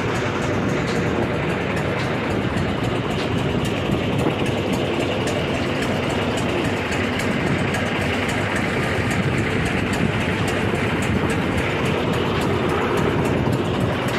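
Motorboat engine running steadily, a constant drone that does not change.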